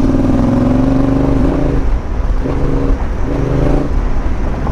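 2020 Yamaha Ténéré 700's parallel-twin engine under way on a dirt trail. Its note holds steady for about a second and a half, eases off around two seconds in, then comes back in two short pulses of throttle, with wind rumble on the bike-mounted microphone.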